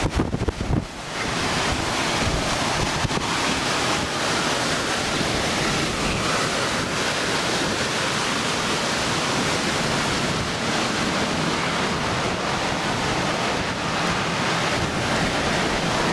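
Strong wind rushing steadily over the microphone, with a few buffeting thumps in the first second.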